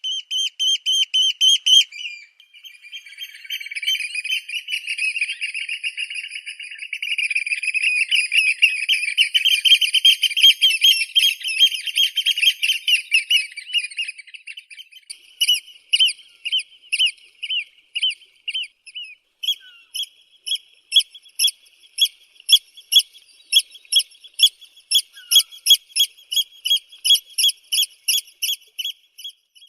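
Eurasian oystercatchers calling: high, shrill piping notes that run together into a long, fast trill for about twelve seconds. They then break into separate sharp notes repeated two to three times a second.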